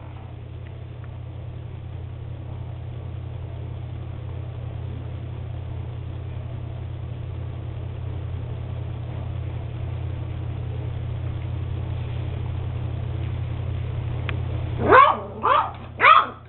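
Beagle puppy giving three sharp, high-pitched yaps about half a second apart near the end, each falling in pitch. Before them a steady low hum runs underneath and stops when the yapping starts.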